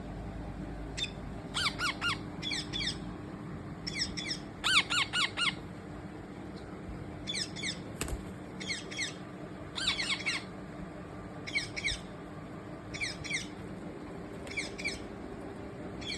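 Baby parrot chirping in quick runs of two to five short calls, each run a second or two apart.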